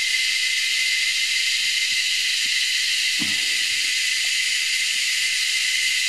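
A chorus of three or four cicada species calling together, a steady, unbroken high-pitched hiss with a constant whine running through it.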